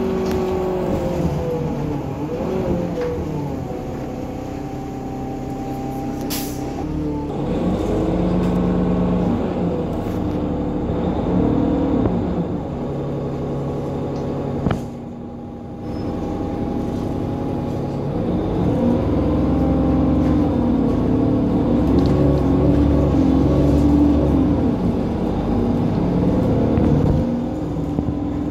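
Cummins ISB6.7 six-cylinder diesel and Voith automatic gearbox of a Solaris Urbino 10 city bus, heard from inside the passenger cabin while driving. The engine pitch rises and falls several times as it accelerates and eases off, with a short drop in level about halfway through.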